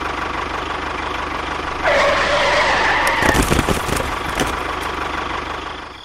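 A tractor engine runs steadily, getting louder about two seconds in. A cluster of knocks comes around the middle, and the sound fades out near the end.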